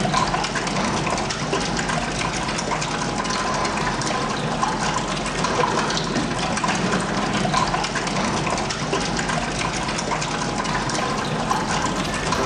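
Steady rush of water in a dog's bath, poured and swirling around a wet toy poodle.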